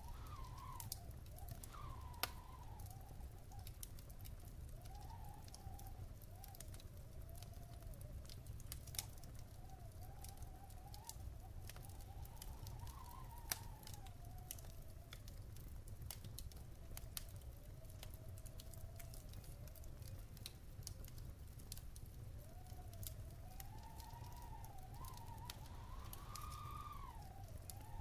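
Wood fire in a fireplace crackling, with scattered sharp pops over a steady low rumble. A faint wavering whistle rises and falls in pitch behind it, strongest near the end.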